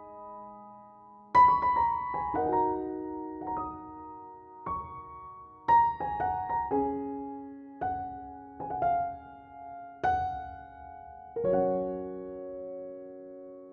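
Background music: a slow solo piano melody of single notes and chords, each left to ring and fade, with a long held chord near the end.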